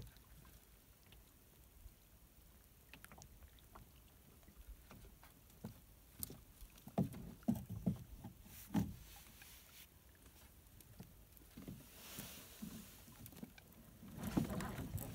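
Small waves lapping and knocking against the hull of a small aluminum boat, with a cluster of soft knocks in the middle and rustling near the end as fishing gear is handled.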